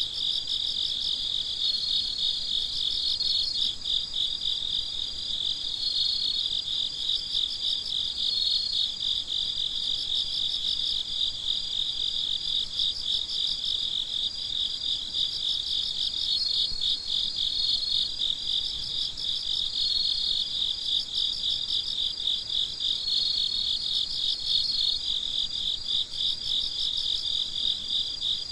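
A chorus of crickets chirping at night, many insects pulsing together without a break, with the steady trills of some crickets starting and stopping over the top.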